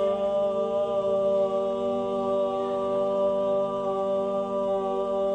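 A steady drone held on one pitch with a stack of overtones, unchanging throughout: the strange hum in the classroom.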